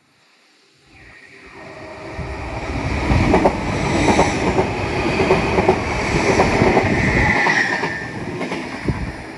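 An express passenger train passing at speed: a rising rush as it approaches, then loud rapid wheel clatter over the track as the coaches go by, with a brief high squeal, easing off near the end.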